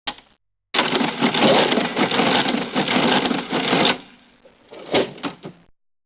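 Mechanical cash register working: a brief click, then about three seconds of dense clattering, then a few separate sharp clicks near the end.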